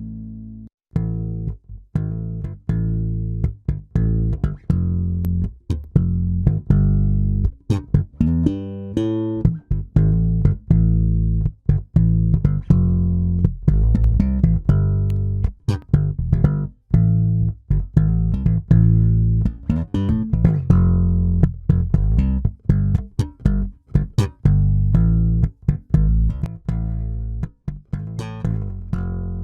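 Electric bass guitar playing a riff of short plucked low notes, with brief gaps between them, as a demo signal run through a MOTHER VIVID three-band 500-series EQ.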